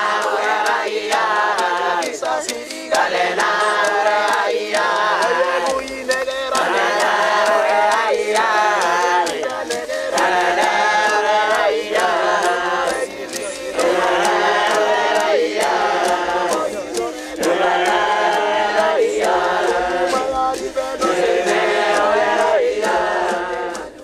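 A large group of Papuan men chanting together in unison, in repeated short phrases with brief breaks between them.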